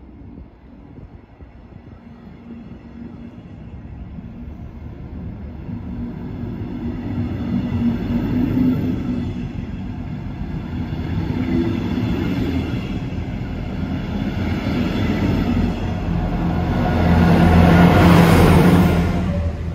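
Double-deck regional train departing past the platform, pushed by a DB class 245 diesel locomotive: the rolling noise of the coaches grows steadily. The locomotive's diesel engines are loudest as it passes, about 17 seconds in, and then the sound begins to fade.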